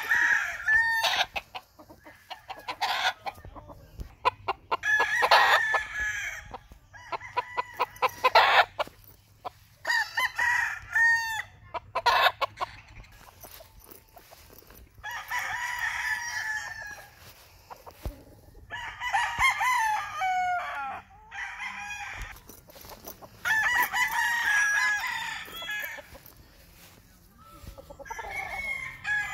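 A young game cockerel, about five and a half months old, crowing again and again in bouts of one to three seconds, with clucking between the crows.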